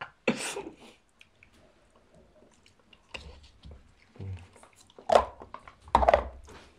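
Close-up eating sounds: soup being sipped and chewed, with small spoon clicks against plastic cups. Two louder slurps come near the end.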